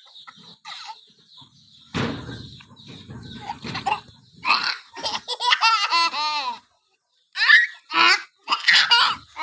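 Baby laughing hard in high-pitched peals, with a fast run of pulsing laughs about five seconds in and short separate bursts near the end. A dull rumble about two seconds in.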